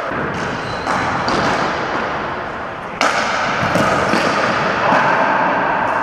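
Ball hockey play on a gymnasium floor: a run of knocks and clacks from sticks striking the ball and the floor, with the sharpest hit about three seconds in.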